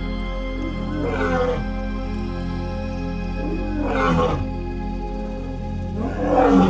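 Three short roars from a lion, about three seconds apart, each with a falling low growl, over ambient music with long held tones.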